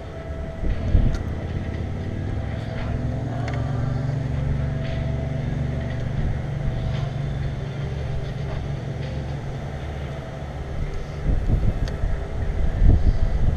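Low engine rumble of a passing motor vehicle, its hum swelling a few seconds in and fading again. Wind buffets the microphone about a second in and repeatedly near the end.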